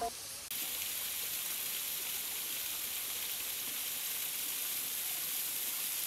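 Small waterfall falling over rock into a pool: a steady, even hissing rush of water, starting about half a second in.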